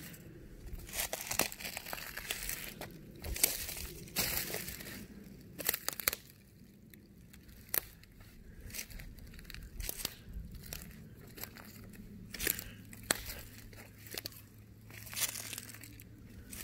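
Footsteps crunching and rustling through dry leaf litter and twigs on a woodland floor, in irregular steps with sharp cracks here and there.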